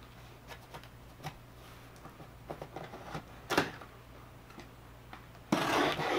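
Box cutter slicing through the packing tape on a cardboard shipping box: scattered small clicks and scrapes, a sharp click about three and a half seconds in, then a long, rough scraping cut near the end.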